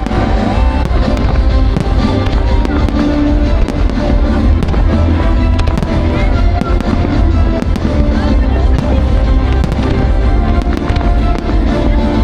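Fireworks exploding in a dense, continuous string of sharp bangs and crackles, over loud music with a strong bass.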